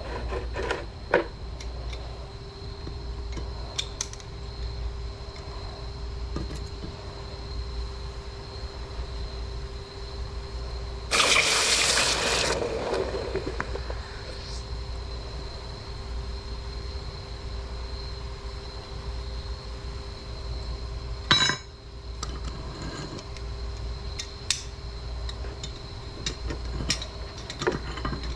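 Steady low rumble of a metal-melting furnace running, with scattered clinks of metal tools. A loud rushing hiss lasts under two seconds about eleven seconds in, and a sharp clank comes about twenty-one seconds in.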